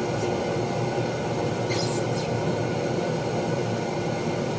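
Steady running noise of blacksmith-shop equipment, a constant hum and hiss with a few faint high squeaks about two seconds in; no hammer blows.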